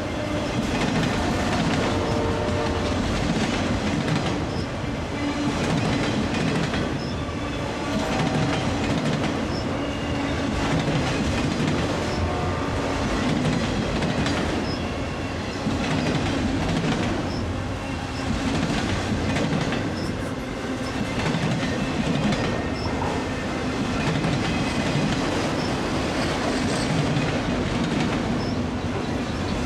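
Freight train of autorack cars rolling past at close range: a steady rumble and clatter of steel wheels on the rails, swelling and easing every few seconds as the cars go by.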